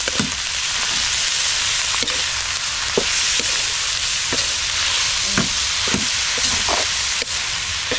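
Shredded meat sizzling steadily in a hot metal wok while a metal spatula stir-fries it, scraping and knocking against the pan about once a second.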